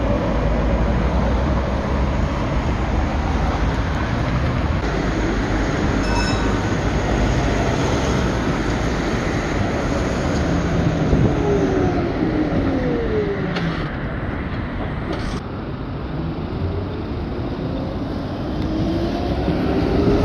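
Electric trams running along street track, with a steady rumble of wheels on rail. Their motors whine, the pitch falling as a tram slows in the middle and rising as one pulls away and speeds up near the end. A short chime sounds about six seconds in.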